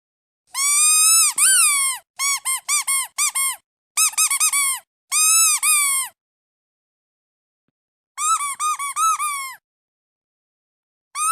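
Squeaky rubber duck toy being squeezed, giving bursts of shrill squeaks. There are a couple of long squeaks, then quick runs of short ones, a pause of about two seconds, and another run near the end.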